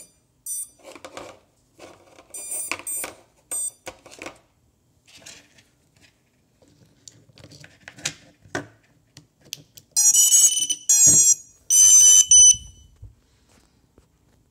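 Rustling and clicking as a battery's XT60 plug is handled and pushed into a quadcopter's power board, then a run of loud, high-pitched electronic startup beeps about ten seconds in, lasting under three seconds: the drone's electronics powering up.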